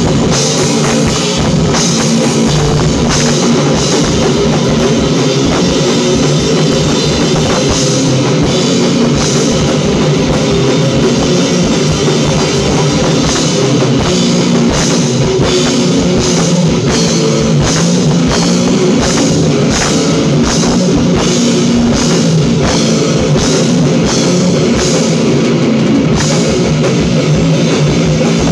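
Loud live rock jam: an amplified electric guitar and a drum kit played together, with steady, closely packed drum and cymbal hits.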